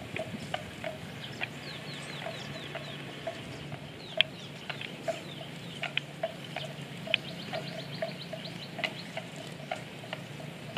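Birds calling: runs of quick, short downward chirps and scattered short lower notes, with sharp clicks now and then over a steady low hum.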